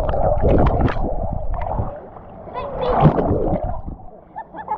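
Water rushing and splashing with a heavy low rumble, mixed with faint distant voices and shouts.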